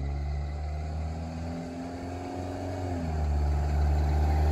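Toyota Dyna Camroad motorhome's 3.0-litre 5L-E diesel engine running as the truck drives up the road, growing louder as it approaches. Its note climbs and then drops suddenly about three seconds in.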